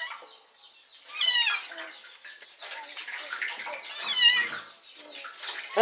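Kitten meowing twice, high and wavering, as it is being washed in a basin of water, with faint splashing between the calls.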